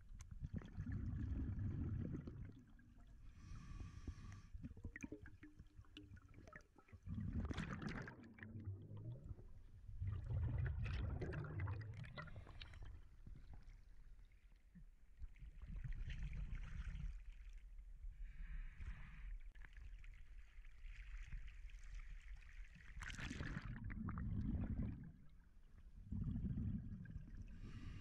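Water heard through an underwater camera in a river current: a muffled low rumble, broken by several louder gurgling, bubbling bursts. The camera breaks the surface about halfway through.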